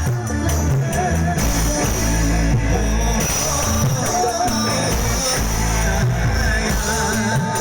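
Live dangdut band music with heavy bass and a run of quick drum hits.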